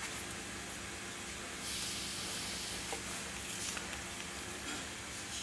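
Handling noise from gloved hands turning a dismantled orrery's metal gear assembly: a soft rustling hiss that thickens about a second and a half in, with a couple of faint light metallic clicks, over a steady low hum.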